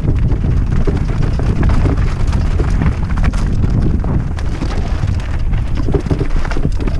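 Heavy wind buffeting on the camera microphone mixed with a mountain bike's tyres rolling fast over a loose gravel trail, with frequent small rattles and clicks as the bike runs over stones.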